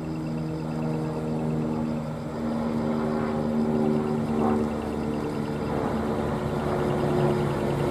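Heavy diesel truck engine fitted with a split exhaust manifold (mani-wari) and twin mufflers, pulling slowly toward the camera with a steady, low droning exhaust note; the pitch shifts up slightly about two seconds in.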